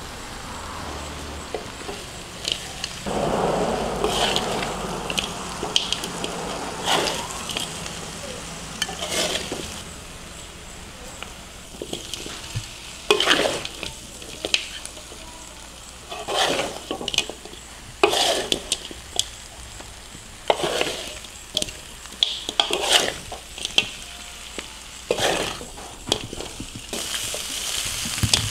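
Meat frying and sizzling in a pan while a spatula stirs and scrapes it in irregular strokes, with a louder spell about three seconds in.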